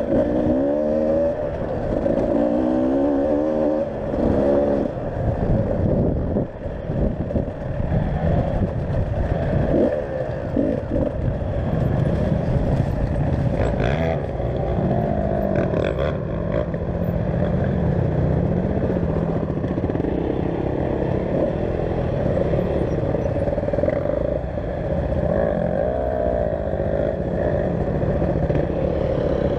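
Enduro motorcycle engine running under way off-road, its pitch rising and falling with the throttle, with quick repeated revs in the first few seconds. Two short knocks come about halfway through.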